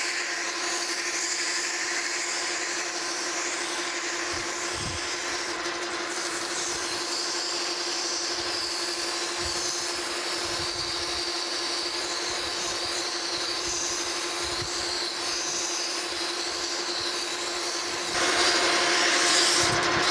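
Metal lathe running, with its rotary phase converter, turning a steel shaft while a strip of fine emery cloth is held against it to polish it: a steady machine hum under a continuous rubbing hiss of abrasive on metal. The rubbing grows louder about two seconds before the end.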